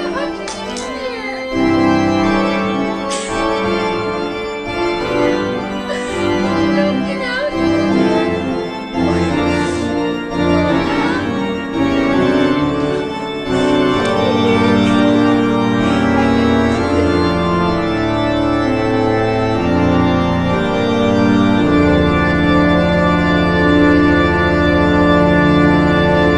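Background music of held chords that change every second or two.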